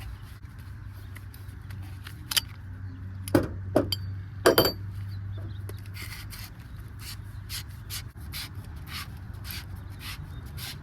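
A few sharp metal clinks, then a run of short, evenly spaced scraping strokes as the cut end of a copper pipe is deburred with a reamer. A steady low hum runs underneath.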